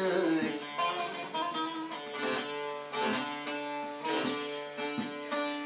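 Saz (bağlama) playing an instrumental phrase of plucked notes over ringing drone strings.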